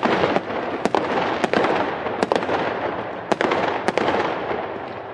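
Fireworks sound effect: continuous crackling with sharp bangs going off about once a second.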